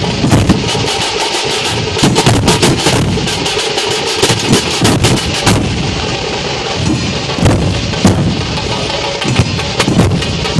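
A dhol-tasha troupe's large barrel dhol drums, many beaten together with wooden sticks in a loud, fast, driving rhythm of sharp strikes.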